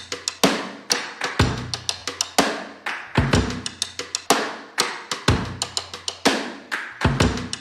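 Background music: a drum-led beat with a heavy low hit about once a second and lighter, sharper hits between.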